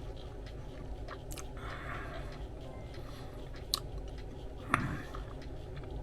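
A person chewing a mouthful of sub sandwich, with a few sharp clicks, the loudest about three-quarters of the way through.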